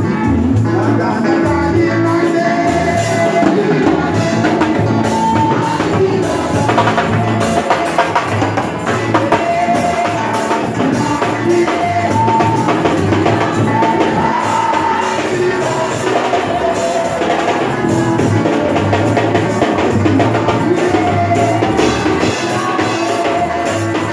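Live gospel song: singing over drums and tambourine keeping a steady beat.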